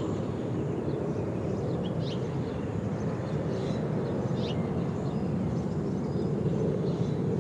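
Steady low outdoor background rumble, with a few faint, short, high bird chirps about two and four and a half seconds in.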